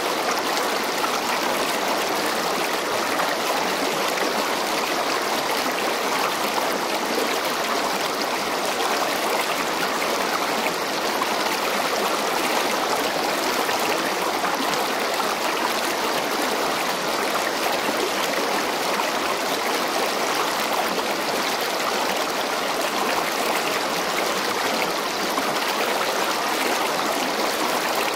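Steady, even rushing of flowing water, unbroken and unchanging throughout.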